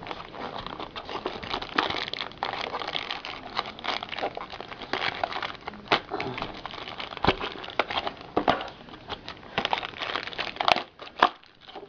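Plastic packaging of a Beyblade toy crinkling and crackling as it is handled and opened, with many small clicks. Two sharp clicks come shortly before the end.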